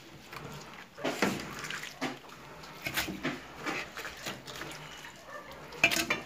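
Wet fish heads and guts being handled in an aluminium pressure cooker, with irregular wet slaps and knocks against the pot. The loudest clatter comes near the end.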